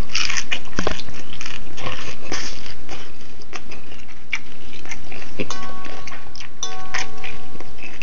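Chewing a mouthful of raw celery close to the microphone: a run of crisp, irregular crunches.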